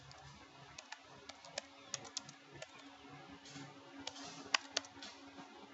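Faint typing on a computer keyboard: scattered, uneven key clicks, with a couple of sharper clacks a little past the middle.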